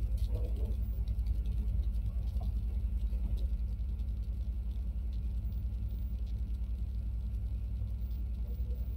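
A steady low hum with a fast, even flutter, with no speech over it.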